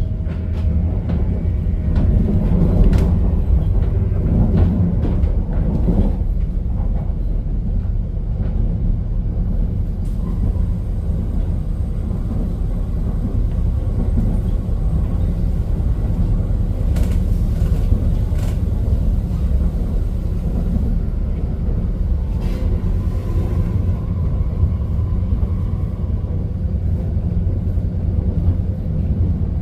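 Steady low rumble of a moving passenger train heard from inside the carriage, with scattered clicks and knocks from the running gear.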